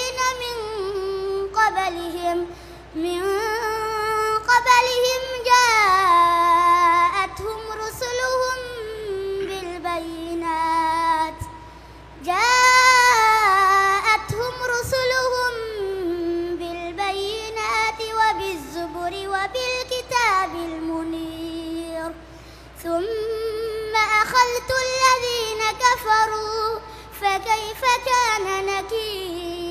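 A young boy's voice reciting the Quran in melodic tajweed, drawing out long, ornamented phrases. The phrases break briefly about three, twelve and twenty-two seconds in.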